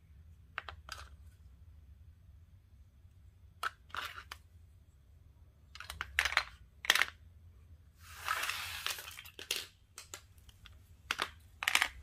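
Small hard craft items being handled and set down on a cutting mat: a scattered run of short clicks and taps, with about a second of rustling a little past the middle.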